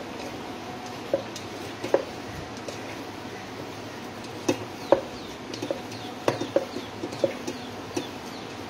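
Hands squeezing and mixing milk-soaked bread into a soft dough in a steel bowl: irregular short squelches and knocks over a steady hiss.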